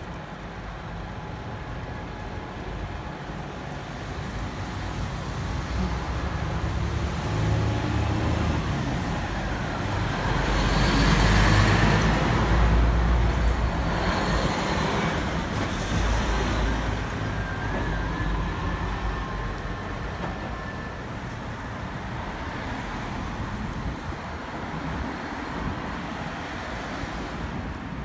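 Road traffic: cars passing on a road, swelling to its loudest about eleven seconds in as a vehicle goes by close, then fading back.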